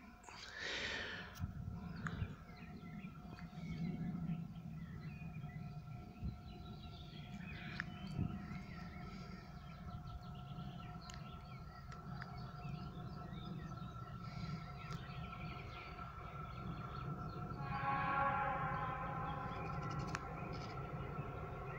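Distant ChME3 six-axle diesel-electric shunting locomotive approaching: a faint, steady low engine rumble with a thin whine above it, growing louder and harsher near the end.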